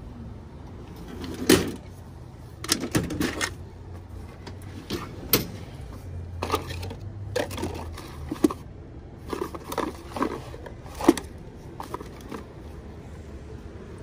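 Spare contactors and their boxes being rummaged through and handled: irregular clicks, knocks and short rattles of small hard parts, with two sharper knocks about a second and a half in and near the end.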